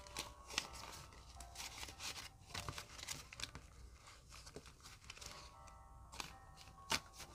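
Paper banknotes rustling and flicking as they are handled and sorted by hand, with frequent short crisp snaps of the bills. Soft background music plays faintly underneath.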